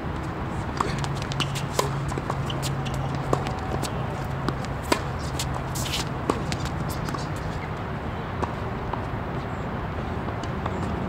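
Tennis court ambience: a steady background hum and hiss with scattered, irregular sharp clicks and knocks, the loudest about five seconds in.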